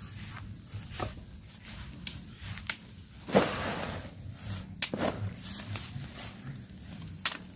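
Footsteps through long grass and the rustle of a banana leaf and sticks being handled, with a few sharp clicks and knocks scattered through; the loudest comes about three seconds in.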